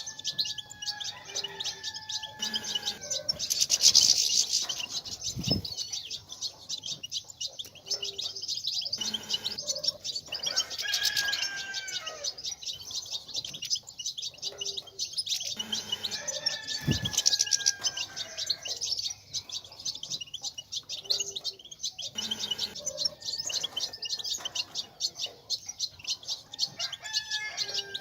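European goldfinches twittering: a continuous stream of rapid, high chirps, with a lower falling whistled note coming back every several seconds. It is the strong goldfinch twitter that keepers play to stir caged males into song.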